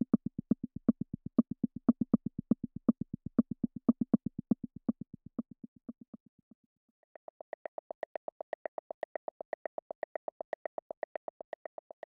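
u-he Zebra software synthesizer playing a rhythmic wooden-percussion preset: a fast, even pulse of short, low wooden notes that fades out about six seconds in. After a brief gap, a higher-pitched pattern of wooden clicks in sixteenths starts up and keeps an even beat.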